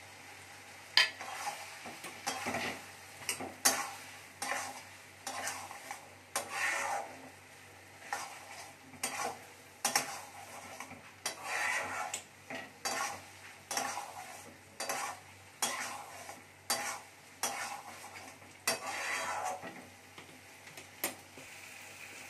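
Metal spatula scraping and knocking against a metal kadai as omelette pieces and boiled whole moong dal are stirred and fried on low heat, with a sizzle underneath. The strokes come irregularly, roughly one a second, starting about a second in and stopping near the end.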